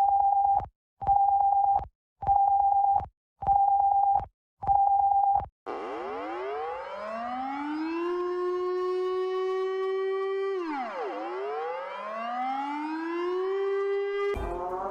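Five steady electronic beeps at one pitch, about a second apart. Then a civil defense siren winds up, holds its wail, drops and winds up again.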